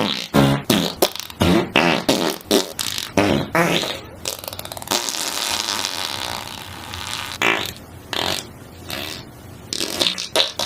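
Fart sound effects: a rapid string of short, pitched farts, then a long hissing, sputtering fart starting about four seconds in, followed by a few more short blasts and another burst near the end.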